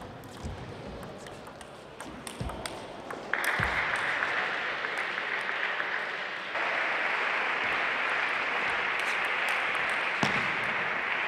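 Table tennis ball clicking sharply off bats and table in a rally. About three seconds in, audience applause starts and carries on loudly to the end, with one more ball strike near the end.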